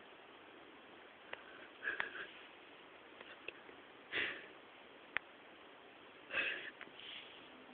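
Three short, breathy sniffs about two seconds apart, with a few faint clicks between them.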